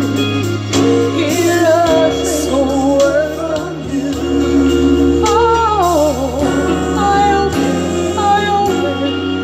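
A woman singing live into a handheld microphone, her voice wavering with vibrato and sliding through runs, over musical accompaniment with sustained bass notes played through a PA speaker.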